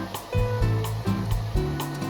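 Electronic background music with a steady beat, about two beats a second, over a bass line and melody notes.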